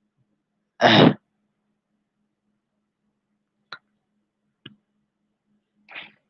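Two faint computer mouse clicks about a second apart, after a brief, loud voice sound about a second in. A short, soft noise comes near the end.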